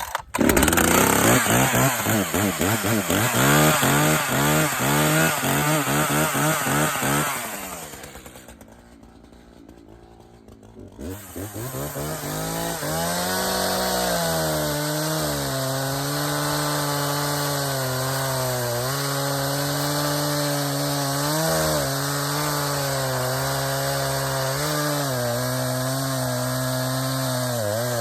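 Echo CS-590 Timber Wolf two-stroke chainsaw running at high revs and cutting through hardwood maple. About seven seconds in the engine falls away and nearly goes silent, stalled in the cut by the sharp chain. About eleven seconds in it comes back up and runs steadily under load, its revs dipping now and then.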